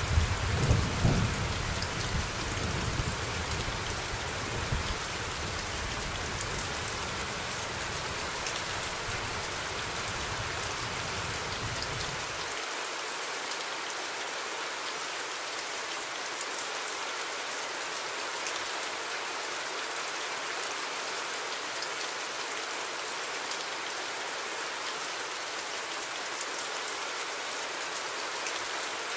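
Steady rain ambience with a low thunder rumble, loudest in the first few seconds. The low rumble cuts off abruptly about twelve seconds in, leaving only the even rain noise.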